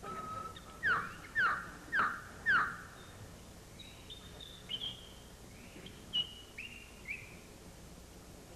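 Birds calling: four loud chirps falling in pitch about half a second apart, then a run of softer, higher whistled notes that rise and hold.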